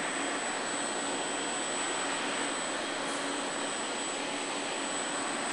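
Candy-bar packaging line machinery running: a steady rushing noise with a thin, high-pitched whine over it.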